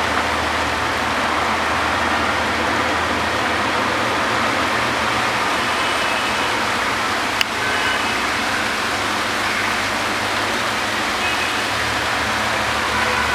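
Heavy monsoon downpour, a steady even hiss of rain, with a single sharp click about seven seconds in.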